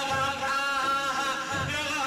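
Male madih praise singing in a Middle Eastern style, with a held, ornamented melodic line. Low drum beats fall about every second and a half, twice here.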